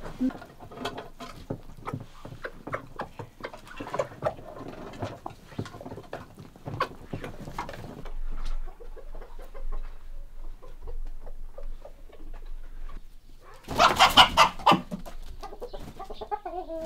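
A flock of hens and roosters clucking while pecking at feed in a wooden trough, with many short taps. Near the end one chicken gives a single loud call about a second long.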